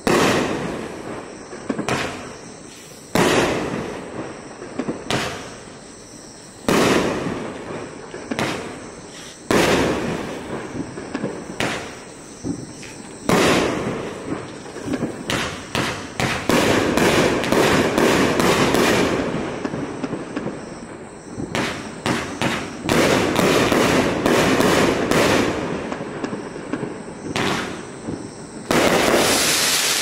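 Flaming Dragon 500 g fireworks cake firing shot after shot: a loud bang every two to three seconds, each trailing off, with long stretches of dense crackling from its crackling-willow shots about halfway through and again later.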